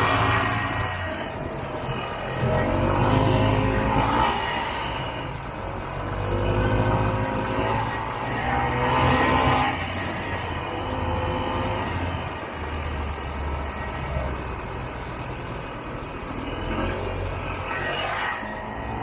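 Vintage Ski-Doo snowmobile's two-stroke engine running hard through deep snow, its revs rising and falling in several swells.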